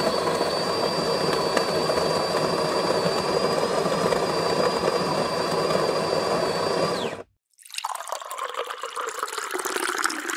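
Coffee-making sound effects: an espresso machine's steam wand hissing with a steady high whistle, which cuts off about seven seconds in. After a short gap, coffee pouring.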